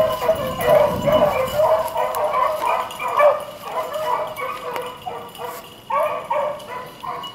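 A pack of beagles baying on a rabbit's trail: overlapping yelping cries, several a second, with hardly a break. The hounds are on the scent, running the rabbit.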